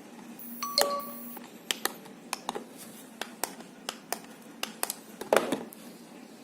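Irregular small clicks and taps of an alarm clock being handled, about a dozen in all, with a brief steady tone about a second in and a louder knock near the end.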